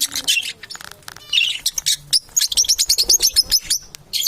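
Pet parrots chirping and warbling in quick runs of high chirps, thinner about half a second in and busiest in the second half.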